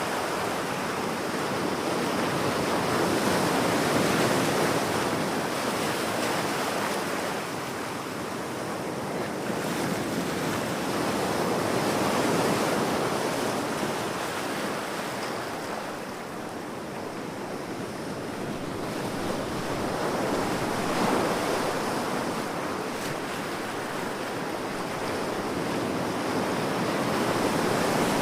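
Ocean waves breaking and washing up a beach, the surf swelling and easing in slow surges every several seconds.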